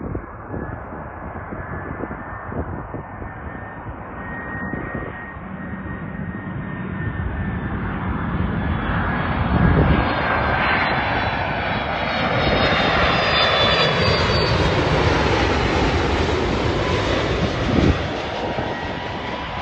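Delta Boeing 767's jet engines on landing approach, growing steadily louder as the airliner comes in low overhead, with a high whine that slides down in pitch as it passes. Gusts of wind buffet the microphone now and then.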